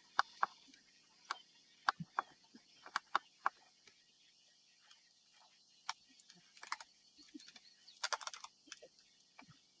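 Spotted hyena chewing on a wildebeest carcass: irregular sharp cracks and clicks of its teeth on bone and gristle, with a quick cluster of them about eight seconds in.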